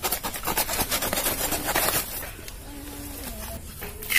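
Knife sawing and scraping into the fleshy stem of a banana plant: a quick run of rasping strokes for about two seconds, then quieter, ending in a loud rip as a strip of the stem's sheath is torn away.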